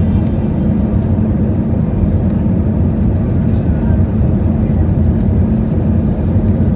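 Steady low rumble inside an Airbus A320 cabin: the engines and airflow droning evenly, with a faint steady hum.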